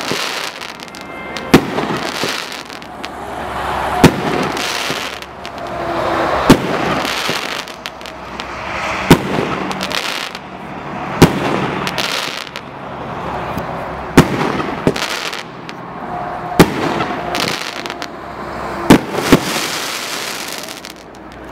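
A 40 mm firework cake (MaxSem Magic Shots) firing shots one at a time, about every two and a half seconds, nine in all. Each is a sharp bang followed by a second or two of hissing noise from the burst. Two shots come close together near the end.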